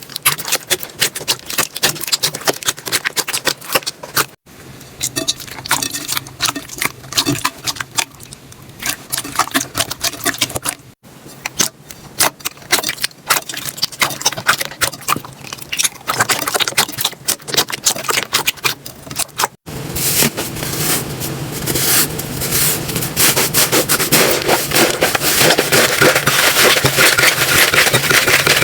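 Slime being squeezed, poked and stretched by hand: rapid sticky clicks, pops and crackles. The texture changes abruptly three times, and after the last change, about twenty seconds in, it becomes a denser, steadier crackling that grows louder.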